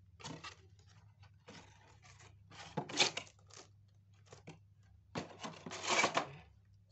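Clear plastic wrapping crinkling and rustling against cardboard as a boxed car head unit is handled and lifted out. The rustling comes in irregular bursts, loudest about three seconds and again about six seconds in.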